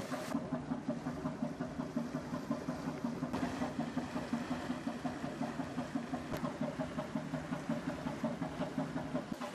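Three-cylinder Callesen 427 CO marine engine running with an even, pulsing beat.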